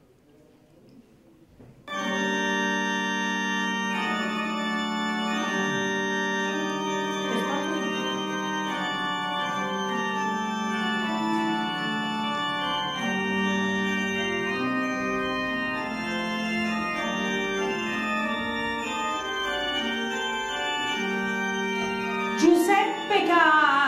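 Organ music in slow, held chords, starting suddenly about two seconds in after near quiet. A voice comes in over it near the end.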